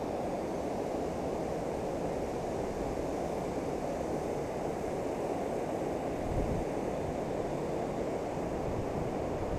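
Steady, low-pitched rushing of river water pouring over a low-head dam's spillway. A brief low bump comes about two-thirds of the way through.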